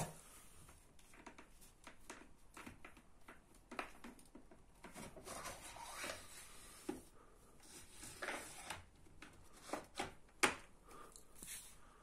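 Faint, irregular clicks and rustles of handling, with one sharper click about ten seconds in; the vacuum cleaner's motor is not running.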